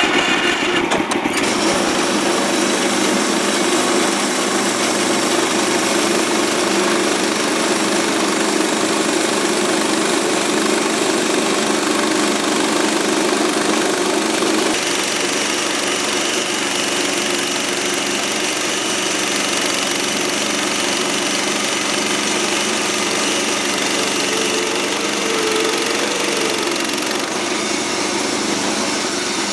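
Gasoline engine of a portable band sawmill running steadily as the band blade is pushed through a log, its tone shifting about halfway through.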